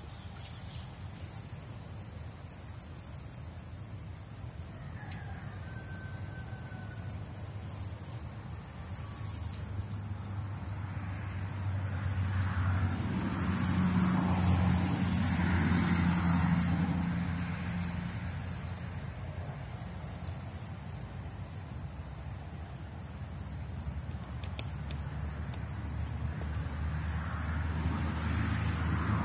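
Steady high-pitched chorus of insects, with a single short bird whistle about six seconds in. A low hum swells and fades in the middle.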